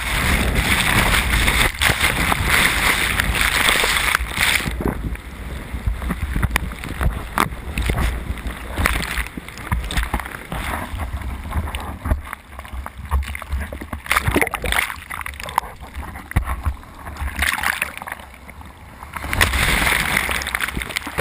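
Whitewater of a large breaking set wave churning over and around a board-mounted waterproof camera held under in the surf. Loud rushing for the first few seconds, then quieter, muffled churning with knocks and splashes, and loud rushing again near the end.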